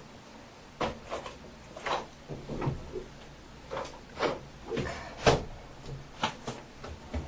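A dozen or so irregular knocks and clatters of things being handled and set down, like cupboard doors and small items on a counter, the loudest a little past the middle.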